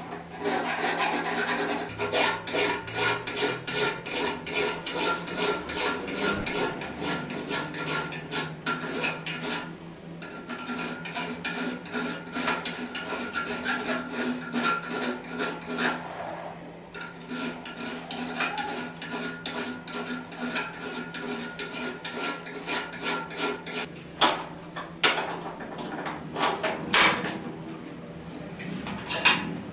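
Hand file rasping back and forth over the rusty steel poll of an old axe head clamped in a bench vise: a quick, continuous run of strokes that wears down the pitted surface. Near the end the filing stops and a few sharp separate clinks are heard.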